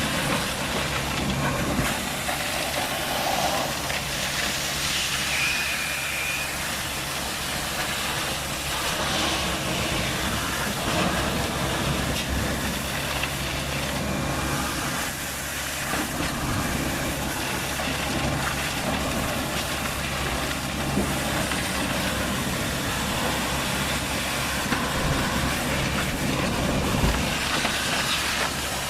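Vacuum excavator running steadily: a low truck-engine hum under an even, broad hiss.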